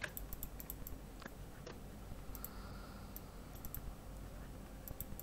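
Faint, irregular clicks of a computer mouse and keyboard, a scattered dozen or so short clicks with a few stronger ones in the first two seconds.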